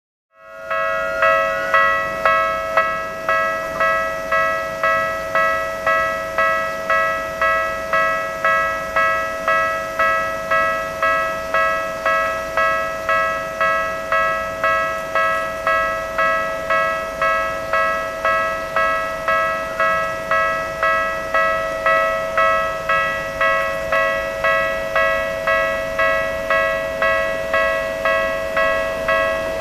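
Japanese railway level-crossing warning bell ringing steadily and rapidly, an electronic two-tone ding repeated about one and a half times a second, starting about half a second in: the crossing is closed for an approaching train.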